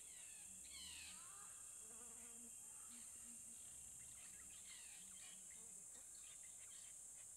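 A steady, high-pitched drone of insects, with scattered short bird chirps over it, the liveliest about a second in.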